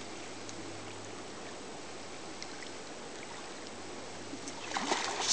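Steady rush of river current. About a second before the end, a louder burst of splashing: the hooked chinook salmon thrashing at the surface.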